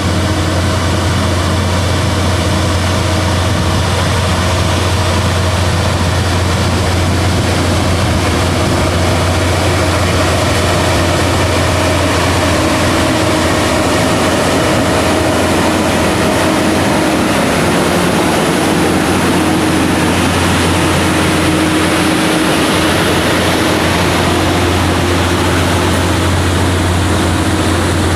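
Heavy diesel engine of a railway track maintenance machine running steadily under load, with a deep constant drone and a thin whine above it whose pitch drops partway through.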